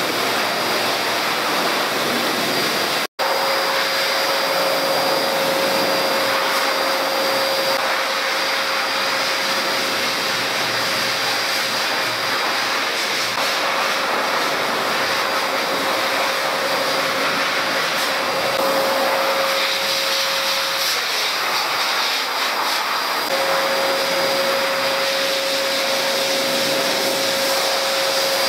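Pet grooming blower running steadily through its hose nozzle, drying a cat's wet fur: a constant rush of air with a steady motor whine. It cuts out for an instant about three seconds in.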